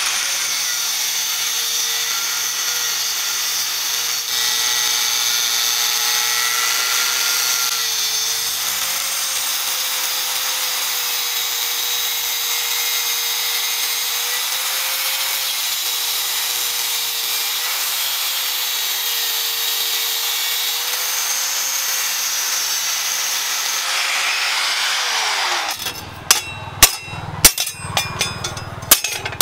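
Angle grinder with a thin cut-off wheel cutting a steel motorcycle disc brake rotor: a steady, loud grinding hiss over the motor's whine. About 26 seconds in the grinder winds down, and a rapid run of sharp hammer strikes on the metal follows.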